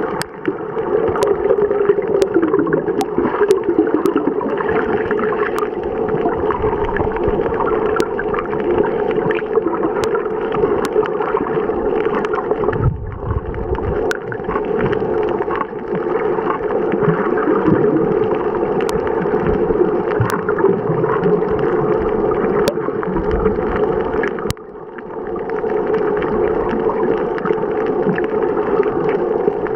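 Muffled rushing water noise from a camera held underwater, steady and dull, with scattered sharp clicks and two brief dips about 13 and 24 seconds in.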